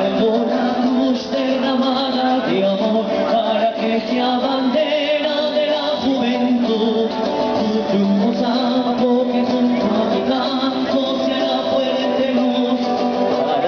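A song sung by several voices together, continuous and fairly loud, with no break in the singing.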